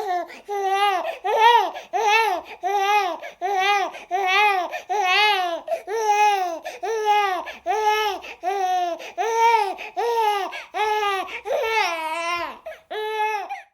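Cartoon baby crying sound effect: a rhythmic string of short pitched wails, each rising and then falling, repeating about every 0.8 seconds with no break until it stops near the end.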